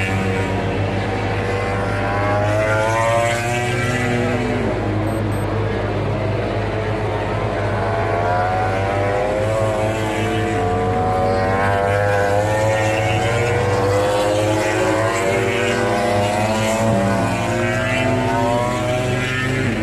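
MotoGP race motorcycles' engines revving hard as the bikes pass through a corner, several at once, their high engine pitch climbing and falling again and again as they accelerate and slow, over a steady low hum.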